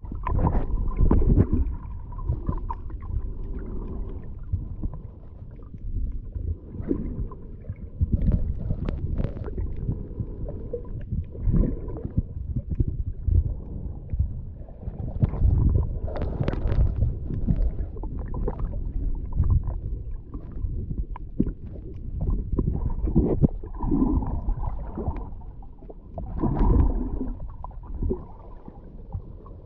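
Muffled underwater water movement picked up by a submerged GoPro action camera: irregular low rumbling and sloshing that swells and falls every second or two.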